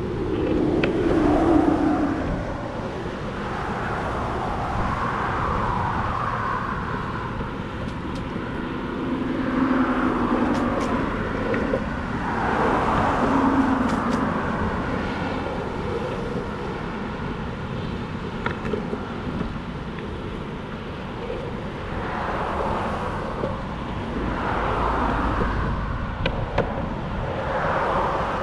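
Longboard wheels rolling on a concrete sidewalk, with sharp clacks here and there, more of them near the end. Cars pass on the road alongside, rising and falling in long swells.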